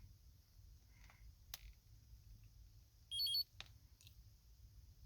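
A short high-pitched electronic beep about three seconds in: the car's security system confirming the lock. A couple of faint clicks come before and after it, over an otherwise quiet background.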